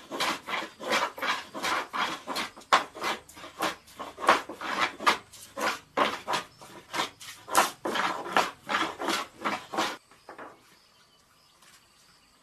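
Hand plane shaving a wooden board in quick, regular strokes, about two or three a second, stopping about ten seconds in.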